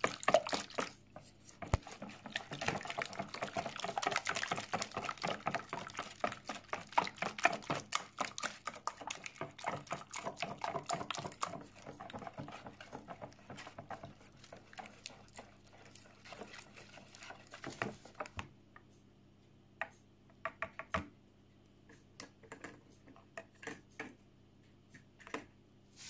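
Balloon whisk beating runny cake batter in a plastic bowl: rapid, continuous sloshing and clicking strokes, thinning to a few scattered clicks after about 18 seconds.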